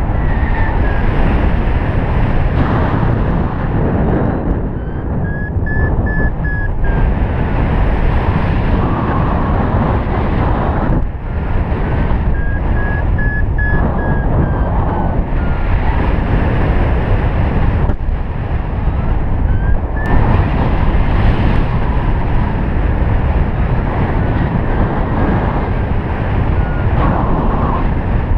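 Loud wind rushing over the microphone of a paraglider pilot's camera in flight. Under it, a variometer beeps, its pitch rising and then falling in slow arcs every few seconds as the climb rate changes.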